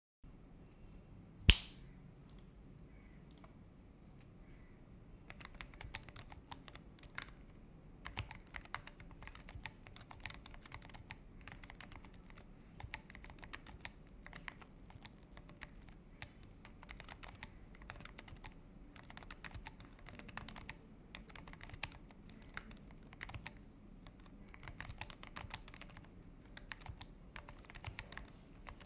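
Stock 81 Pro mechanical keyboard being typed on: a stream of irregular keystroke clacks that starts about five seconds in. Before it there is one sharp, much louder click and a few faint ticks.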